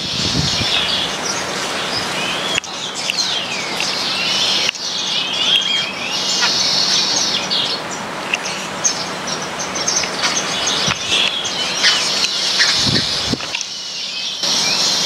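A flock of baya weavers chirping and chattering together: dense, overlapping high-pitched chirps and short sliding calls. The chatter changes abruptly a few times.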